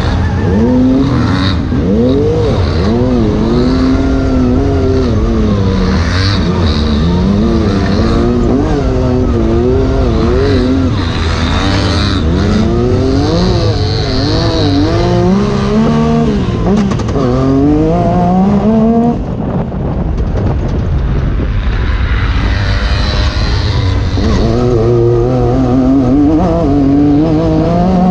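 Racing UTV engine revving hard, its pitch rising and falling constantly as the machine drives over rough trail, with a brief drop in revs about two-thirds through.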